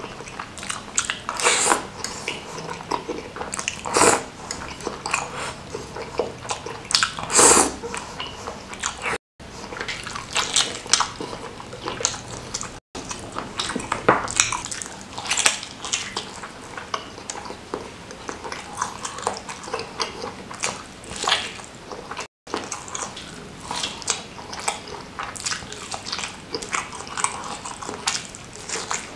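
Close-miked mukbang eating sounds: slurping spicy-broth rice vermicelli and biting and chewing large beef meatballs (bakso), with irregular wet smacks and clicks. The sound is broken by three brief dropouts.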